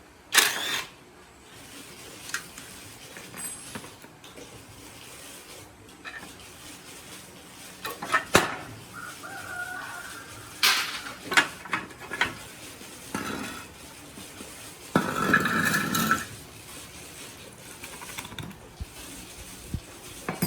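Scattered metal clinks and knocks, as of tools and parts being handled, with a denser, louder rattle about fifteen seconds in.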